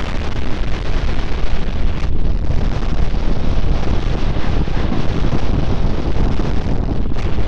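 Avalanche rumbling: a loud, steady, deep rushing noise that holds without a break.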